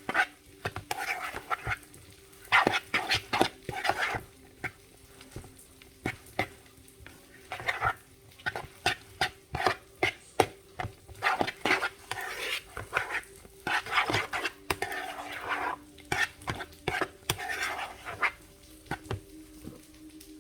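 A spoon stirring and scraping mixed vegetables and butter around a pan in irregular strokes, with light sizzling.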